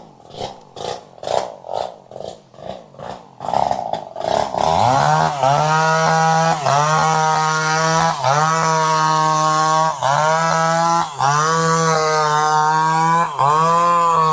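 Two-stroke chainsaw engine: a run of rapid, evenly spaced sputtering pulses for the first few seconds, then it picks up into a steady high-revving whine, its pitch dipping briefly and recovering about every second and a half.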